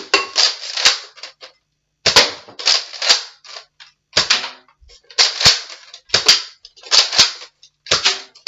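A run of sharp plastic clicks and clacks, about ten in irregular succession, as a Nerf blaster is worked and loaded by hand.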